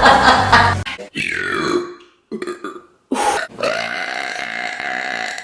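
A woman belching several times in a row: a loud burp that ends about a second in, a shorter one, a few short broken ones, then one long, drawn-out belch of about two seconds near the end.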